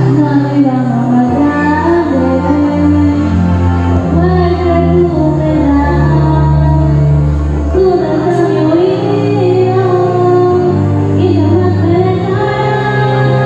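A woman singing a melody into a microphone over a recorded backing track, both amplified through a PA loudspeaker.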